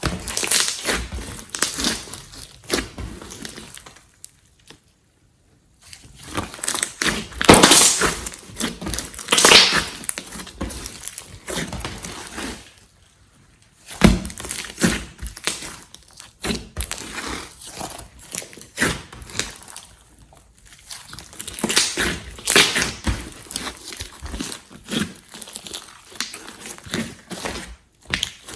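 Slime being squished and stretched by hand, giving a dense run of irregular sticky crackles and pops, with two short pauses.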